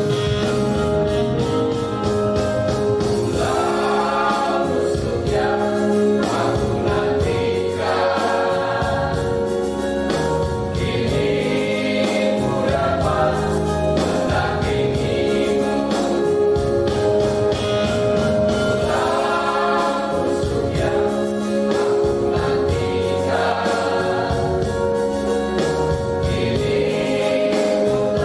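Mixed choir of women's and men's voices singing a hymn together in long held notes.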